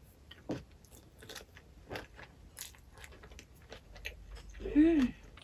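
Close-miked chewing of spicy chicken feet: wet, crunchy bites and chews in quick irregular strokes. Near the end comes a short hummed 'mmm' of enjoyment with a rising-then-falling pitch.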